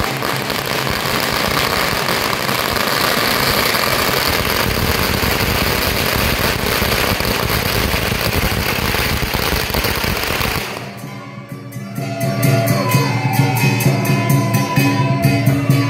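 A long string of firecrackers going off in a rapid, continuous crackle for about ten and a half seconds, then stopping abruptly. After a short lull, music comes back in for the last few seconds.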